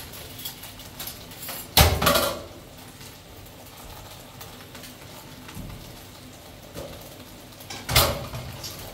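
Two sharp knocks about six seconds apart over a low steady background; the first is followed by a brief clatter.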